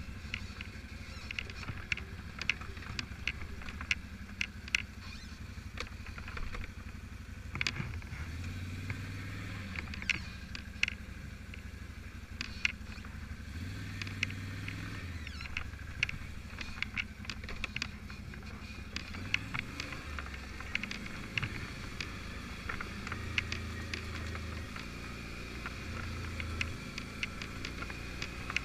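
Quad bike (ATV) engine running at low revs on a rough forest trail, its pitch rising and falling with the throttle. Frequent sharp clicks and knocks run through it.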